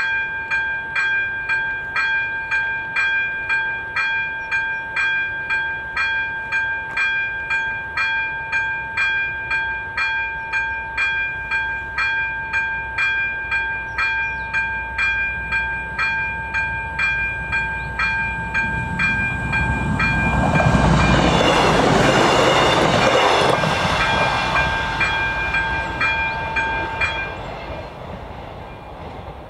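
Electronic level-crossing warning bell (AŽD ZV-02) ringing in rapid, evenly spaced strokes. About twenty seconds in, a train passes over the crossing with a loud rush that builds and then fades. The bell stops near the end as the crossing clears.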